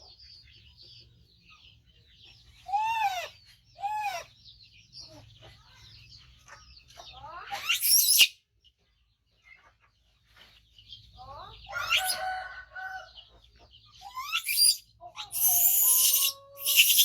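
Baby monkey crying out in loud, high-pitched squeals and screams: a couple of short arching calls, a rising shriek, then a run of longer screams near the end. These are the begging cries of a young monkey waiting to be fed.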